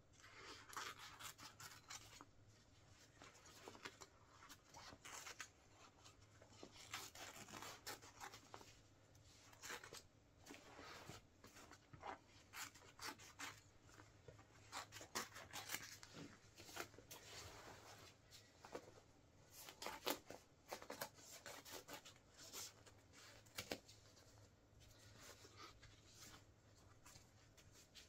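Scissors cutting into a Wellensteyn Schneezauber jacket: irregular snips and fabric rustling and tearing.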